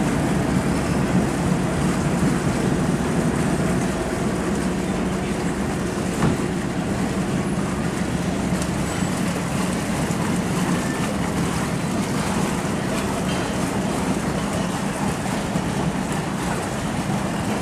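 A boat underway: its motor drones steadily under a constant rushing noise of water and wind. There is a single brief knock about six seconds in.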